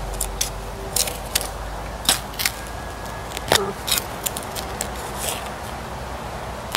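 Digging by hand in stony soil full of rubble: irregular scrapes and sharp clicks as the digging hits stones and bits of concrete.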